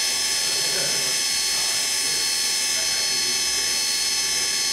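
Spindle of a KIWA KNH-426X horizontal machining center running at a constant speed of about 5,000 RPM, a steady whine made of many high tones that hold their pitch.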